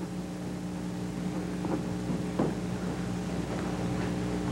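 Steady electrical hum with overtones over tape hiss from an old videotape recording, with a few faint short sounds in the room.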